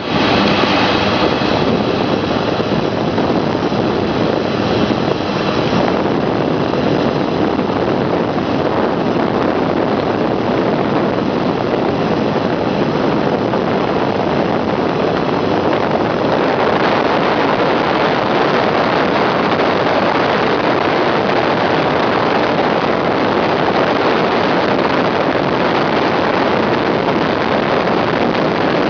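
Mitsubishi MU-2's twin Garrett TPE331 turboprops running loud and steady, heard from inside the cockpit as the aircraft taxis onto the runway and starts its takeoff. A high turbine whine rides over the first several seconds. About halfway the whine fades and the engine noise grows broader and fuller.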